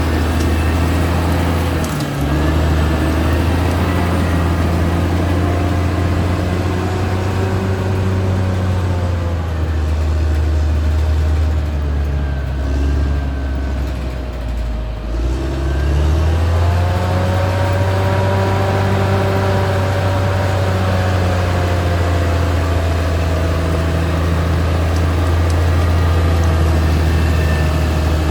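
Caterpillar D6R XL bulldozer's diesel engine running steadily under work, with whining tones above the engine note that glide up and down. The engine note sags about halfway through and picks up again a second or two later.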